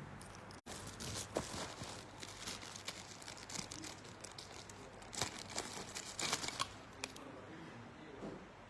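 Plastic packaging crinkling and rustling as it is handled, in a run of dense crackles from about a second in until near the end, loudest a little past the middle.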